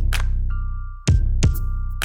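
Electronic background music with a heavy bass beat, sharp drum hits and sustained synth tones.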